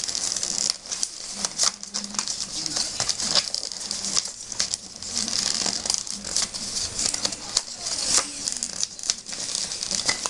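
Rolled newspaper tubes rustling and crackling as a weaver tube is worked in and out around pairs of paper stakes and pressed tight, with many small irregular clicks.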